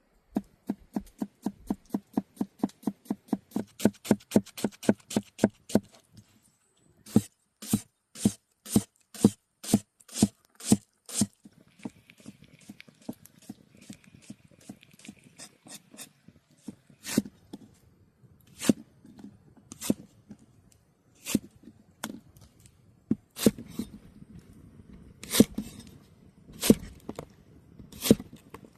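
Knife chopping food on a cutting board: a fast run of even strokes, about four a second, for some six seconds, then slower strokes about two a second, then scattered single chops.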